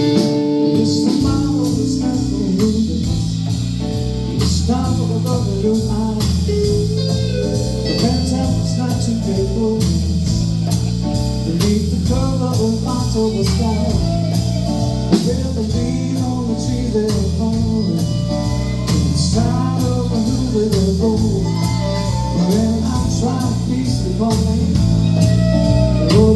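Live band playing a blues number: guitar, bass and drum kit with a singing voice, at a steady level throughout.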